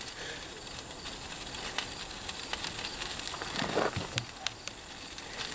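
Gasoline fire burning on top of a car engine, crackling with scattered sharp pops over a steady rush, and a brief louder rush about three and a half seconds in.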